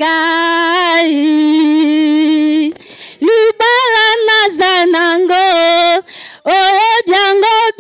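A woman singing a slow Lingala song, apparently unaccompanied, with vibrato. She holds a long note for nearly three seconds, then sings short gliding phrases with brief breaths between them.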